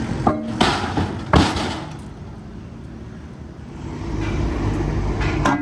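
A heavy engine running with a low rumble, with three sharp rasping surges in the first second and a half and more clattering near the end.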